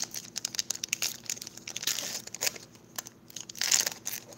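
Foil Pokémon trading card booster pack crinkling and tearing as it is opened, with the cards sliding out; louder rustling comes about two seconds in and again near the end.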